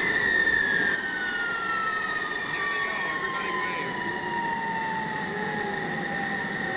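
Jet engine whine from an F-14 Tomcat on the ground: one steady high whine, with a second whine falling slowly and smoothly in pitch.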